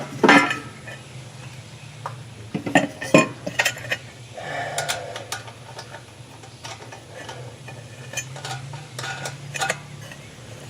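Light metal clinks and knocks, a handful of separate strikes spread over several seconds, as the air cleaner housing is set back on top of the carburetor.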